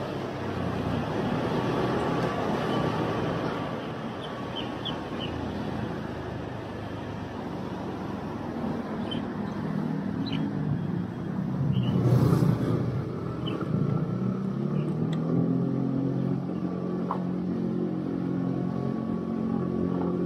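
Motor traffic heard from a moving motorcycle: wind and road noise at first, then engines running steadily, loudest about twelve seconds in.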